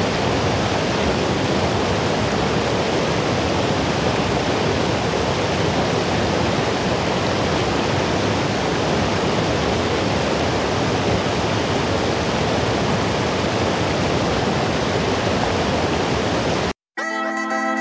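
Shallow mountain river rushing steadily over rock slabs. Near the end the water sound cuts off suddenly, and after a moment's silence music begins.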